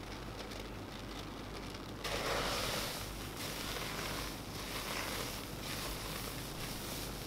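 Thick hot-process liquid soap paste being stirred by hand in a ceramic pot. From about two seconds in it gives a squishing, scraping noise in repeated strokes; before that there is only a steady low hiss.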